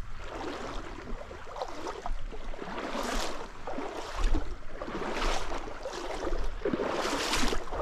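Trout stream water rushing and splashing, with strong wind rumbling on the microphone; louder swells of water noise come about every two seconds.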